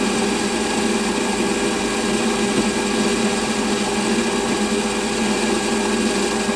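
Small hobby lathe running steadily, a constant motor and drive hum with several steady tones, as it spins an offset eccentric workpiece.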